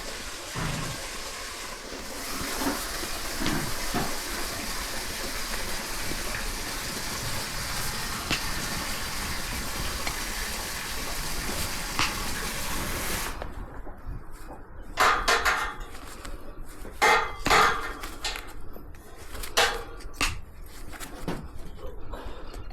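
A steady hiss that cuts off suddenly about halfway through, then a few sharp crunching snips spaced a second or two apart: hoof nippers cutting through a miniature horse's hoof wall during a trim.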